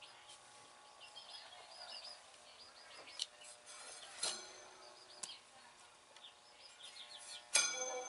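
Baby birds peeping in short repeated chirps throughout. A sharp metallic clink with a brief ring about halfway through and a louder one near the end as the vintage metal fan is handled.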